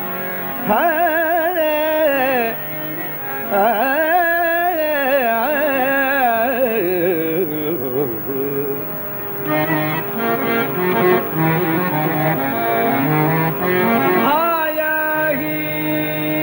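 A male voice singing a Carnatic-style devotional melody over a steady drone, the notes heavily ornamented and wavering. Partway through the melody moves in quicker separate notes, and near the end the voice glides up to a held note.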